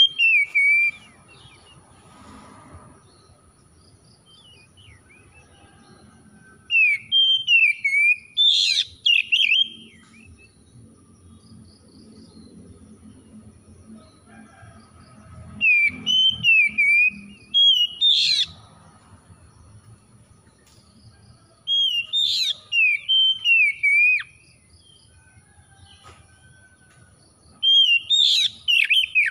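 Oriental magpie-robin singing: about five loud bursts of quick, gliding whistled notes, each lasting one to three seconds, with pauses of a few seconds between them.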